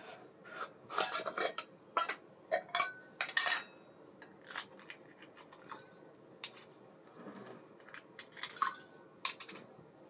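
Small metal parts and tools of an ABU Ambassadeur baitcasting reel clinking and tapping during hand servicing: irregular clicks with a few short metallic rings, busiest in the first four seconds and again near the end.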